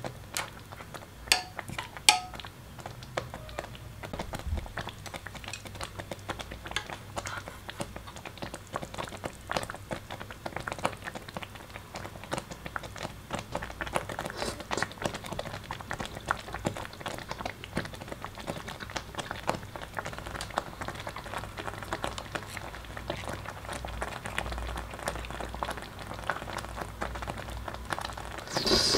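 Thick rice congee simmering in a stainless steel hot pot, bubbling with many small irregular pops. Two sharper clicks come about one and two seconds in.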